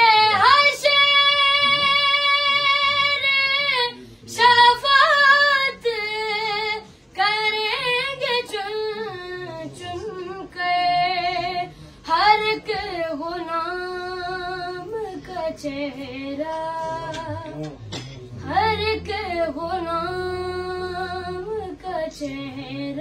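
A boy singing unaccompanied in a high voice, with long held notes that waver and glide between short breaths.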